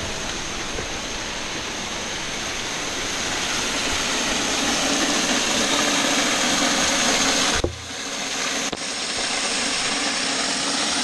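Waterfall rushing, heard from just behind the falling water inside a rock grotto: a steady rush of pouring and splashing water that swells slightly, with a brief dip about eight seconds in.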